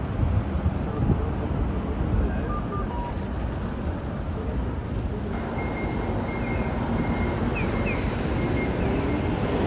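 Steady low rumbling noise of a moving vehicle. About five seconds in it changes abruptly to a similar rumble carrying a faint thin high tone.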